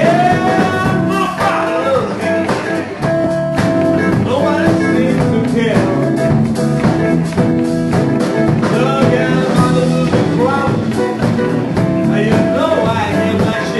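Live blues-funk jam: an amplified harmonica played into a hand-held microphone, with bending, wailing notes over an electric bass, electric guitar and drums.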